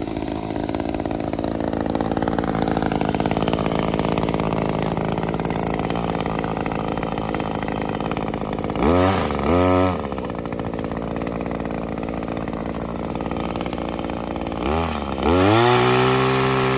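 Echo 25.4cc two-stroke gas pole saw idling. It is blipped twice about nine seconds in, then revved up and held at high speed near the end.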